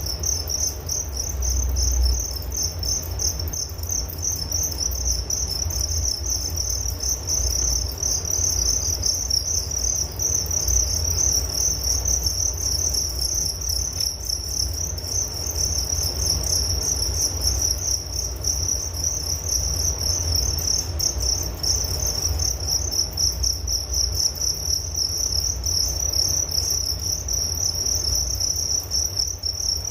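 Crickets chirping in a dense, continuous chorus: a steady high trill, with a low rumble underneath.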